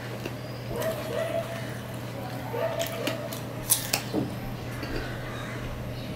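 A person biting and chewing crisp pieces of cut fruit, with sharp crunching clicks spread through the chewing. A steady low hum runs underneath.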